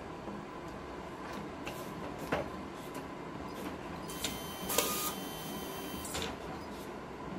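Epson TM-C6000 colour inkjet label printer running for about two seconds past the middle, whirring with several steady tones as it prints and feeds out a strip of labels. A few light clicks and knocks come before it.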